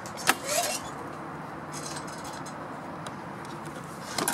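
Clicks and light metallic clinks from the motorhome's entry door hardware being handled: a sharp click just after the start, faint clinking in the middle and a quick cluster of clicks near the end, over a faint steady hum.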